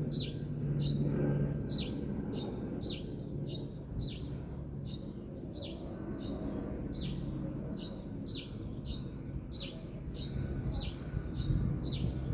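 A bird calling over and over: short, high notes that drop in pitch, about three every two seconds, over a low, steady rumble.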